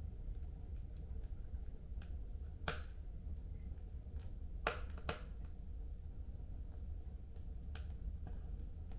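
Wood fire burning in a home fireplace: scattered crackles over a low steady rumble. One sharp pop comes about a third of the way in, and two more pops come close together a little past halfway.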